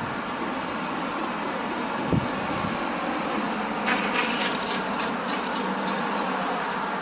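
Steady outdoor background noise, with a single low thump about two seconds in and a short spell of sharp, high clicking and rattling in the middle.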